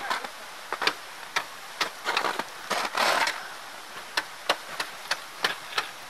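Sharp cracks and crunches of ice, irregular at first with a longer crunch about three seconds in, then coming about three a second.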